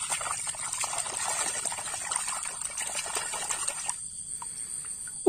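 Shallow water splashing and sloshing as a hand scrubs a small muddy plastic toy animal clean; the splashing stops about four seconds in.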